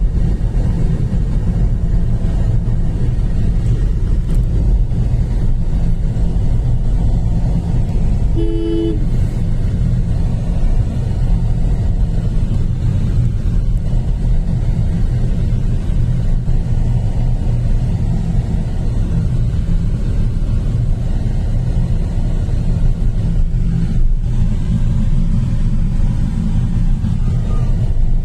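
Steady low rumble of a road vehicle on the move, with one short two-tone horn toot about eight and a half seconds in.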